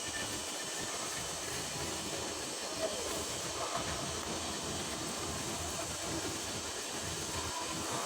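Welding arc on a carbon steel pipe, a steady hiss with light irregular crackling.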